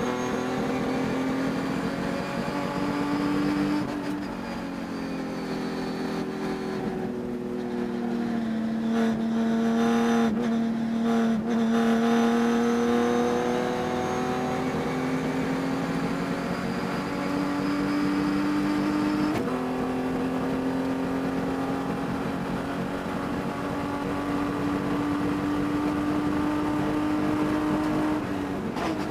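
Race car engine running hard at high revs, its pitch slowly climbing along the straights. The revs dip about four seconds in, jump suddenly around twenty seconds in and fall near the end. A high-RPM misfire troubled this engine all race.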